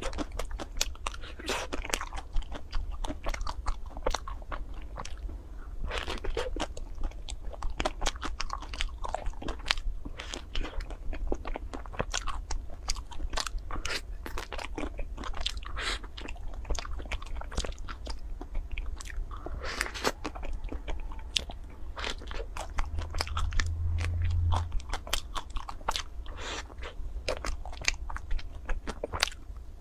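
Close-up biting and chewing of a chocolate-coated ice cream bar, its crisp chocolate shell crunching in many sharp cracks. A brief low hum rises about 23 seconds in.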